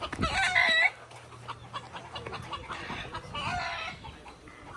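Rooster crowing: a loud wavering crow in the first second, then a fainter crow about three seconds in.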